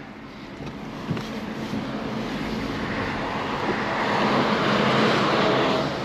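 BMW 220d F44's four-cylinder diesel engine and road noise heard inside the cabin as the car pulls away and accelerates, the sound rising steadily in level and then dropping suddenly near the end.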